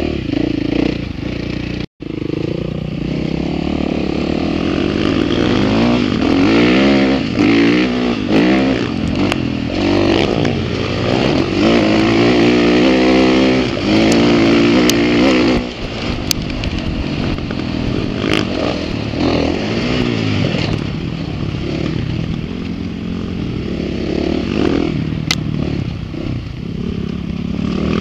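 Dirt bike engine revving hard and dropping back, over and over, as the bike is ridden around a motocross track, heard from on board. The sound cuts out for an instant about two seconds in, and a few sharp ticks come later.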